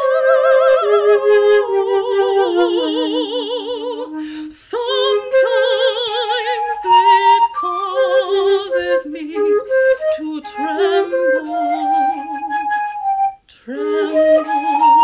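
Slow solo melody, a single line with wide vibrato that steps down in pitch over the first few seconds. After a short break it goes on in shorter phrases, and it drops out briefly near the end before a new phrase starts.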